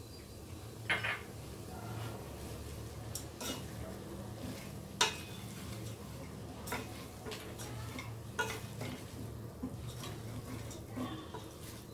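Black plastic spatula stirring pumpkin pieces in a stainless-steel pot, knocking and scraping against the pot's side at irregular intervals, over a low steady hum.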